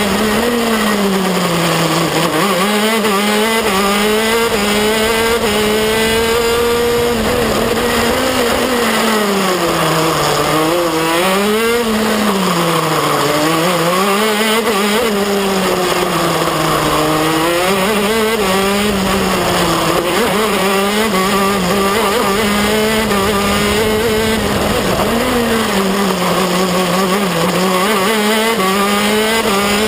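KZ2 kart's 125cc two-stroke shifter engine, heard on board at racing speed. Its pitch climbs and drops again and again as the kart accelerates down the straights and brakes and shifts for the corners.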